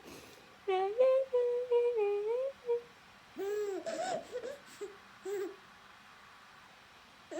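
Infant vocalizing in a sing-song way: a long, held, almost steady-pitched 'aah' starting about a second in, then a few shorter rising-and-falling shouts.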